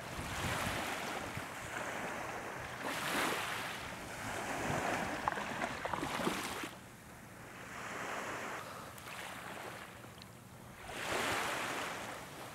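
Small waves washing up on a sandy beach, swelling and falling away every few seconds.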